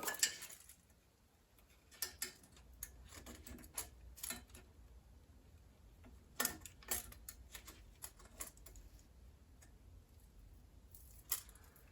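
Faint, scattered clicks and light taps from a tape measure being handled against metal while taking a measurement.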